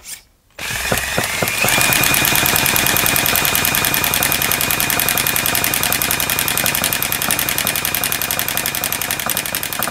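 Electric drill spinning an HPI Firestorm nitro RC car's glow engine over, a rapid mechanical chatter. The drill's whine rises about a second and a half in, then holds steady.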